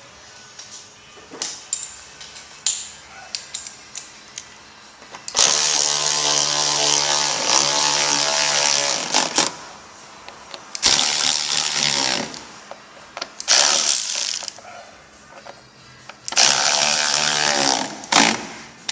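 Cordless drill/driver running screws in four bursts of steady motor whine, the longest about four seconds, with clicks and handling knocks in between, as the plastic screws of a rear diffuser are driven in.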